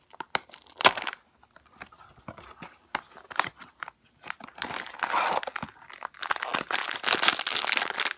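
Pusheen blind box being opened: the cardboard box gives scattered taps, scrapes and a little tearing, then from about halfway the silver foil blind bag inside crinkles continuously as it is pulled out and handled.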